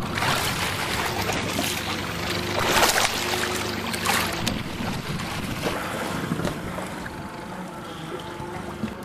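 Fishing boat's motor running steadily at trolling speed, under a haze of wind and water noise with a few louder surges, about three and four seconds in.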